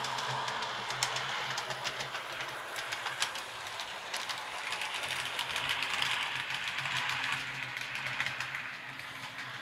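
H0-scale model train running on the layout's track: a steady whirring rush with scattered clicks as the wheels cross rail joints, over a low steady hum. It swells a few seconds in and eases off near the end.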